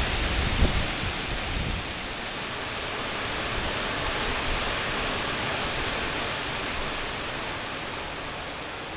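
Steady rushing hiss of a large, 25 to 30 foot waterfall pouring into a creek. Low bumps on the microphone in the first couple of seconds, then the rush fades slightly toward the end.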